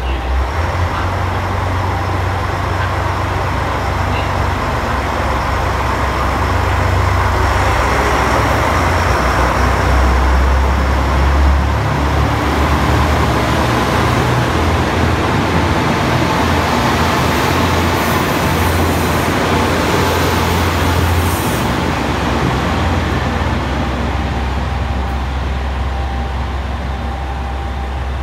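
Diesel railcar engines throttling up as the train pulls out, a deep steady rumble that swells over the first dozen seconds and eases slightly in the last few seconds as it draws away.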